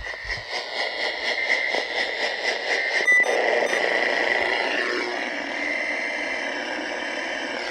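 Radio static after an emergency alert broadcast: a steady hiss with a faint high whistle running through it, a brief sharp beep about three seconds in, and a tone that slides downward about five seconds in.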